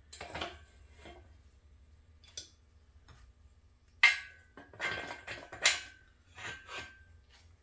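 Steel engine-stand adapter plate and stand parts being handled: a few light clicks, then sharp metal clanks about four and five and a half seconds in, each ringing briefly.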